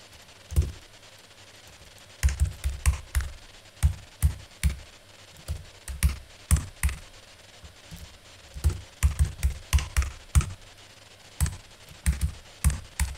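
Computer keyboard typing: keystrokes come in short irregular bursts with pauses between them. A password is being entered and then typed again to confirm it.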